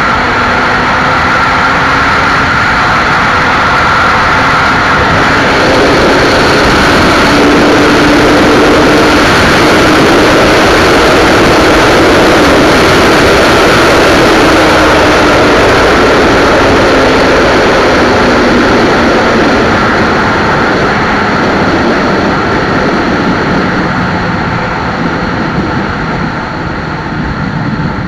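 Suzuki Hayabusa's inline-four engine pulling hard at full throttle near top speed, under a loud rush of wind on the microphone. The engine note climbs a little over the first several seconds and holds, then slowly falls in the last third as the throttle eases and the sound gets quieter.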